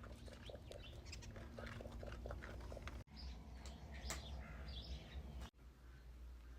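Faint farmyard animal and bird sounds: short repeated calls and chirps, with the sound dropping out briefly twice.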